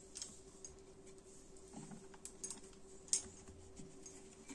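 Faint soft taps and clicks of hands folding and pressing stuffed paratha dough on a wooden rolling board, with a sharper click about three seconds in, over a steady low hum.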